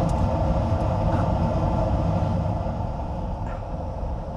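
York gas furnace running just after ignition: the burner flames and the newly replaced inducer motor make a steady noise that eases slightly near the end. It is a modulating furnace, ramping up and down as needed, and it is firing normally.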